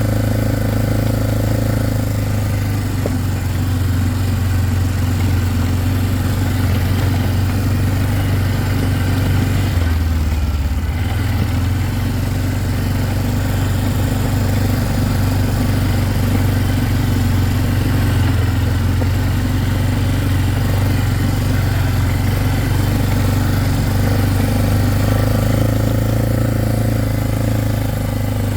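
Four-wheeler (ATV) engine running steadily while being ridden, its pitch dipping briefly about ten seconds in before picking back up.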